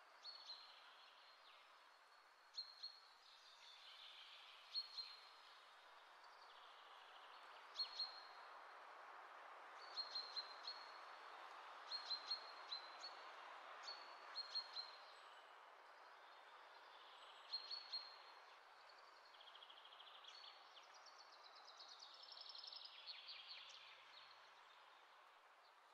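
Small birds chirping, short sharp high calls every second or two and a quicker run of chirps near the end, over a faint steady hiss.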